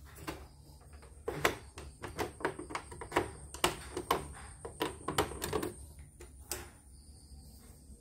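Irregular clicks and light knocks of hands handling the plastic housing of a portable embroidery machine and plugging a lead into its side, over the first six and a half seconds.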